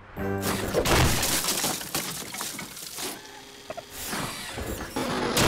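Crashing and smashing sound effects: things breaking with a clatter of debris. The loudest crash comes about a second in, a smaller one at about three seconds, and another near the end.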